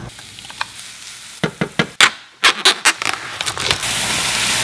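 Several sharp knocks and clatters of kitchen utensils, then ground turkey dropping into a hot frying pan and starting to sizzle steadily near the end.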